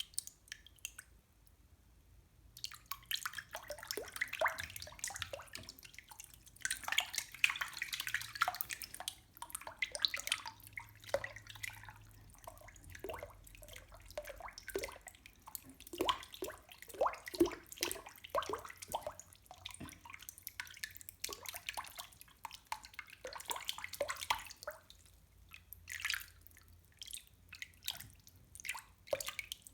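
Water dripping and splashing close to the microphone: quick, irregular plinking drops into water with splashy noise between them, starting about two and a half seconds in.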